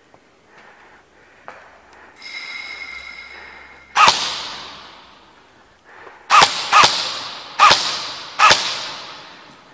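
Five sharp single shots from airsoft guns, each ringing off with a long echo. The first comes about four seconds in, then four more in quick succession over the next few seconds. Just before the first shot there is a steady high tone lasting about two seconds.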